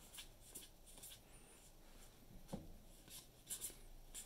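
Faint swishes of Magic: The Gathering trading cards sliding against one another as they are moved one by one to the back of a handheld stack, with a soft tap about two and a half seconds in.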